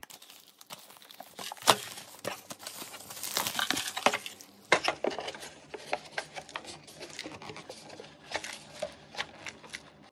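Crinkly material being handled: dense rustling and crinkling with many sharp little clicks and taps, the background changing abruptly about halfway through.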